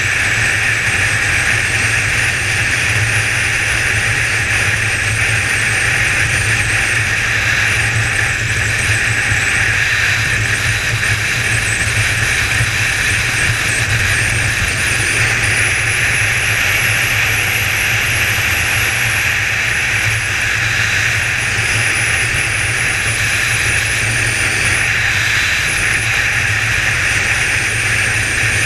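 Kawasaki ZZR 1400's inline-four engine running steadily at cruising speed, mixed with wind and road noise from the moving motorcycle. Steady and loud, with no marked revving or gear changes.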